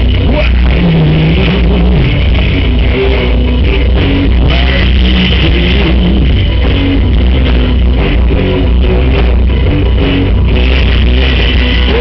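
Rock band playing loud and live at a soundcheck, with electric guitars over a steady bass line.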